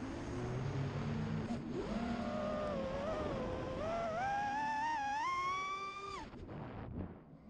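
Five-inch FPV quadcopter's EMAX RS2205 2300KV brushless motors whining, the pitch rising and falling with the throttle. The whine climbs steadily to its highest pitch, then cuts off abruptly about six seconds in as the throttle is chopped.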